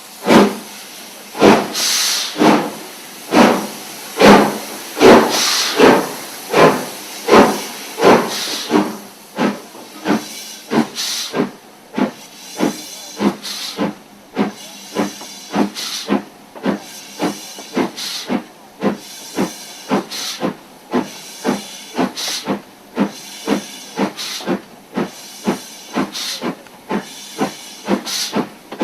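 Stanier 'Black 5' 4-6-0 steam locomotive working hard under power: a steady beat of exhaust chuffs over a hiss of steam. The beats quicken from about two to about three a second as the engine picks up speed.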